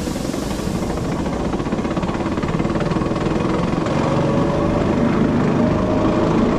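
Electric cogwheel (rack) train running downhill on rack track: a fast, even rhythmic rumble from the running gear, getting gradually louder, with a faint whine that rises slightly in pitch about four seconds in.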